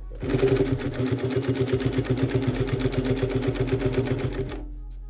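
Highlead double-needle industrial sewing machine stitching through a fabric strip: a fast, even needle rhythm over the motor's hum. It starts right away and stops shortly before the end, leaving a faint hum.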